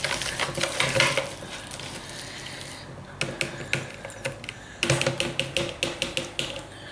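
A whisk beating flour and seasonings into melted butter in a jug to make a roux: a fast run of clicks and taps against the jug, sparser and softer in the middle, then quick again near the end.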